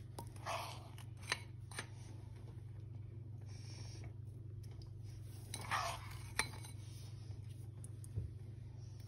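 Metal spoon scooping runny icing from a mixing bowl, with soft scrapes and a few short clinks of the spoon against the bowl, over a steady low hum.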